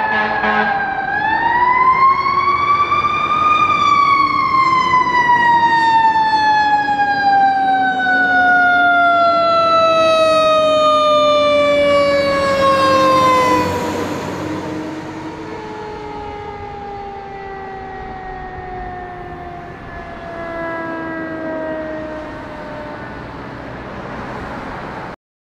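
Fire engine siren, responding to an alarm: a wail that climbs in pitch for a couple of seconds, then falls slowly for about ten seconds. After that the siren goes quieter and keeps falling as the truck moves away, and the sound cuts off suddenly near the end.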